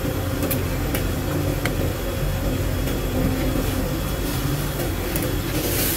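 Steady machine hum, like a fan or appliance running, with a few faint clicks of a table knife spreading sauce on a flatbread over a marble counter.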